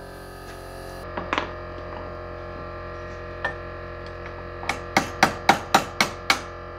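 Ratchet wrench clicking as the engine's half-inch crankcase bolts are backed off: a few single clicks, then a run of about seven sharp clicks near the end, about four a second. Soft background music and a steady low hum run underneath.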